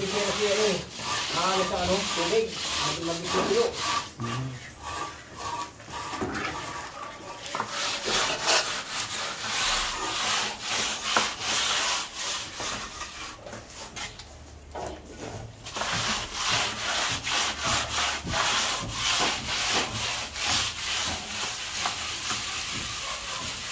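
Cement plaster being worked onto a wall by hand: a plastering tool makes repeated scraping, rubbing strokes on the wet render, with a short pause around the middle.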